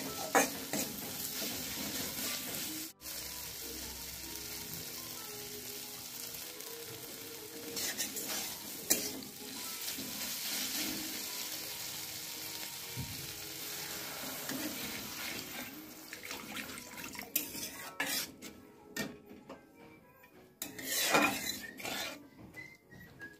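Food sizzling in a hot pan while a spoon stirs and scrapes against it. About two-thirds of the way through the sizzle dies down, leaving scattered clinks of spoon on pan.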